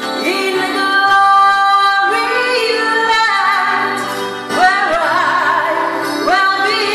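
A woman singing a gospel song through a microphone and PA, with long held notes, vibrato and quick upward slides into phrases, over electric keyboard accompaniment.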